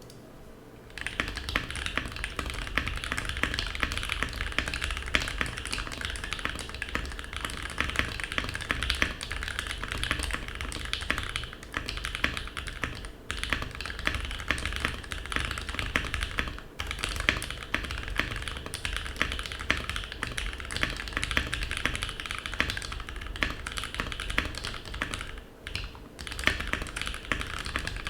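Steady typing on an NK65 v2 mechanical keyboard, starting about a second in. The keyboard has an aluminium plate with plate foam, Gateron Ink Black v2 linear switches lubed with Krytox 205g0 and filmed, and Leopold keycaps. The clicks come in a dense stream, with a few brief pauses.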